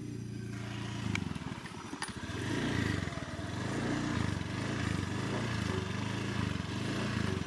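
Honda Scoopy scooter's small single-cylinder engine running as it rides along, its pitch rising and falling again and again as the throttle is eased on and off, with a rushing hiss that builds about half a second in.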